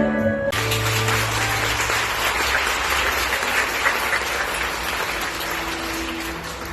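Orchestral ballet music stops about half a second in and an audience breaks into sustained applause. The applause fades near the end as soft music returns underneath.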